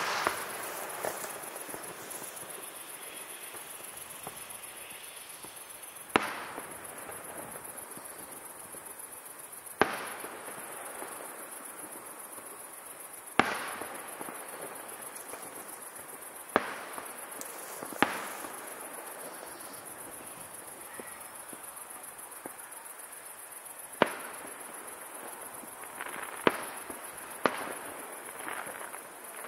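Aerial firework shells bursting: about ten sharp bangs at irregular intervals, each trailing off briefly, with several coming in quicker succession near the end.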